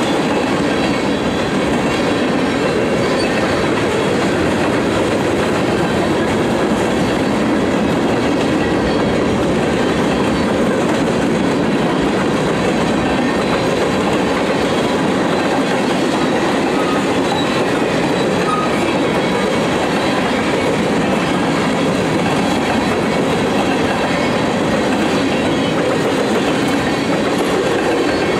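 A freight train's cars rolling past steadily on the rails, a continuous even rumble with no horn or break.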